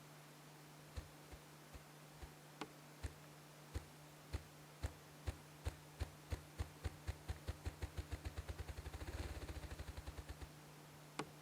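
A series of sharp clicks or knocks over a steady low hum, about a second apart at first, speeding up to several a second, then stopping, with one more near the end.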